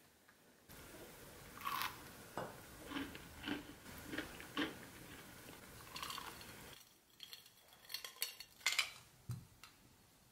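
Quiet tabletop handling sounds: soft taps and rustles as a madeleine is lifted from a metal madeleine tin, then a cluster of sharper clinks about eight to nine seconds in as a glass of iced drink is picked up and its ice moves.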